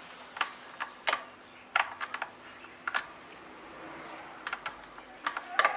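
Metal hand tools clicking and clinking irregularly on the motorcycle's chain adjuster nuts and bolts, with a quick cluster of clicks near the end, while the chain slack is being readjusted.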